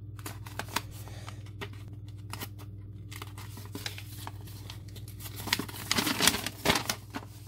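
Paper instruction sheet rustling and crinkling as it is handled, with scattered small rustles and then a denser, louder flurry about five and a half seconds in. A low steady hum runs underneath.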